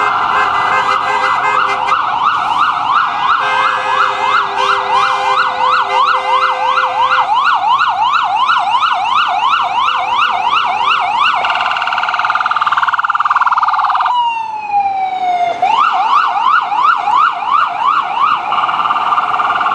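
Ambulance electronic sirens in yelp mode, rapid rising sweeps about three a second, over a steadier siren sounding alongside, with a vehicle horn blaring in the first several seconds. About eleven seconds in the yelp breaks off. A slow sweep then dips down and back up before the yelp resumes.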